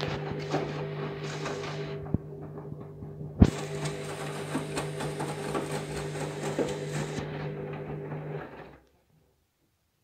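Candy Grand'O Vita front-loading washing machine on a rinse: a steady motor hum with water sloshing in the turning drum, a click about two seconds in and a sharp knock about three and a half seconds in. The sound cuts off suddenly near the end.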